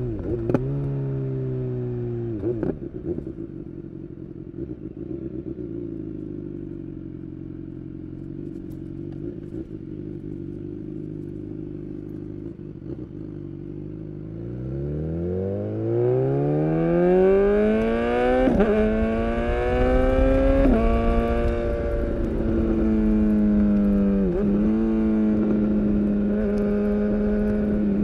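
BMW S1000R inline-four motorcycle engine with a full Akrapovic exhaust. It starts with the revs falling through two downshifts, then runs steadily and quieter for a while. About halfway it revs hard under acceleration, the pitch climbing fast with three brief sharp cuts at the quickshifter upshifts, and settles into louder steady running at speed.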